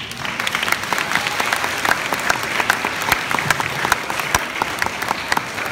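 An audience of schoolchildren applauding: many hands clapping at once, a dense, steady patter of overlapping claps.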